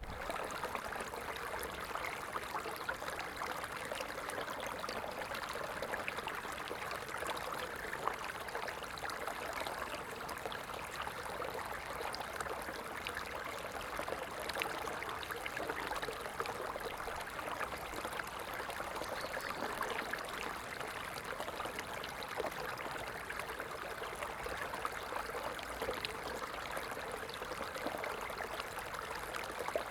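Small stream of water flowing and trickling in a steady rush, with fine splashing and bubbling throughout.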